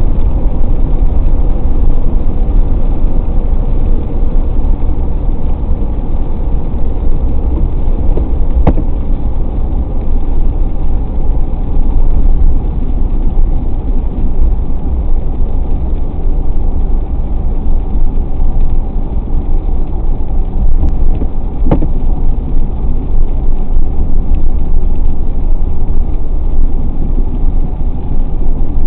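A car driving at speed: a steady road and engine rumble, heaviest in the low end. Two brief sharp clicks come through, about nine and twenty-two seconds in.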